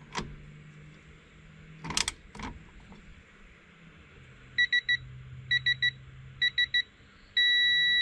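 Digital torque adapter beeping as a battery terminal nut is tightened to 4 N·m: three short groups of beeps, then one steady beep near the end, signalling the set torque is reached. Two sharp clicks about two seconds in.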